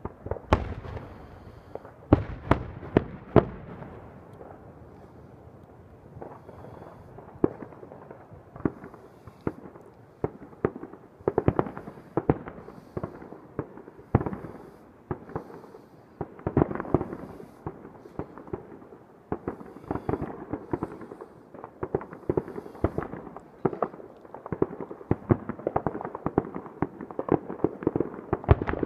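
Fireworks going off: a few sharp bangs from bursting aerial shells in the first few seconds, then a dense, irregular crackle of many pops and bangs that thickens about halfway through.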